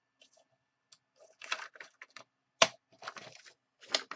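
Fiskars sliding paper trimmer cutting card stock: short scrapes as the blade carriage is pushed along and stopped, one sharp click a little past halfway, then paper rustling as the cut sheet is lifted off the trimmer.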